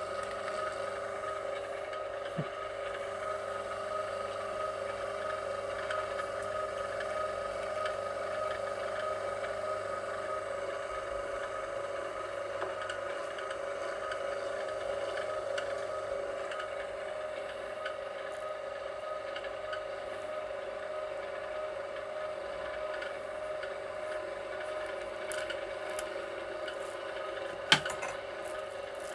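VEVOR electric wire-stripping machine running steadily, its motor giving a constant whine with a scraping rub as copper wire is fed through it. A single sharp click sounds near the end.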